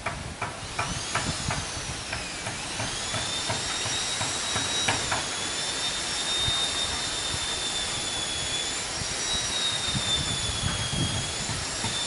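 Hammer blows nailing wooden planks onto a boat hull, about three a second at first, then sparser. About a second in, a high-pitched machine whine starts, rises and falls in pitch, then holds steady and is louder than the hammering.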